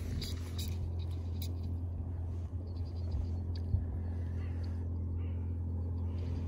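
Wind buffeting the microphone as a steady low rumble, with a few light clicks of handling in the first second or so.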